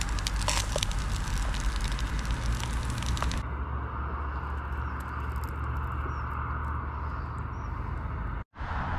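Crackling for about three and a half seconds, then a steady low drone of distant road traffic. The sound cuts out for a moment near the end.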